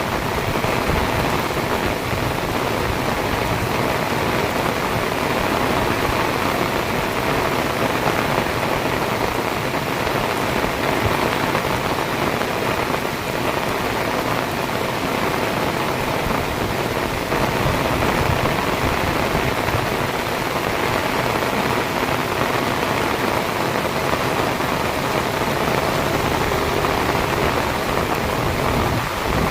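Heavy rain pouring steadily, an even hiss of downpour on hard surfaces.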